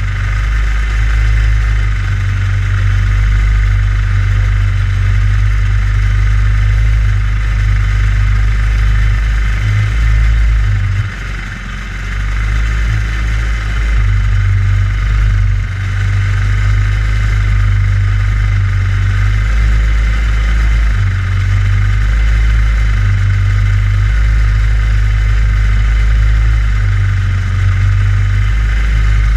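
Go-kart engine idling steadily, heard close from the kart itself, with a brief dip in level about eleven seconds in.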